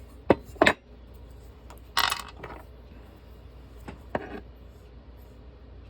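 Small metal parts and tools being handled: two sharp clinks, then a short rattle about two seconds in, and another clink a little after four seconds.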